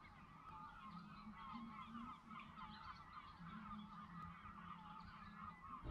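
Faint, continuous chorus of many goose-like waterfowl calls overlapping, heard over the water at night.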